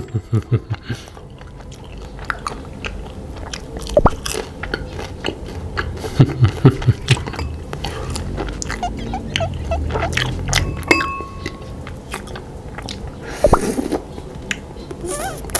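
Close-miked chewing of a homemade jelly eyeball, with scattered wet mouth clicks and smacks.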